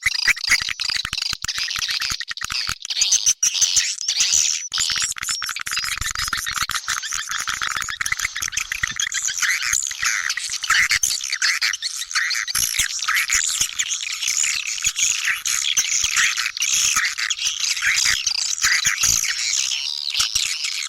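Swiftlet lure call of the 'China Kalbar' type: a dense, unbroken chorus of swiftlet chirps and twitters, laced with rapid sharp clicks.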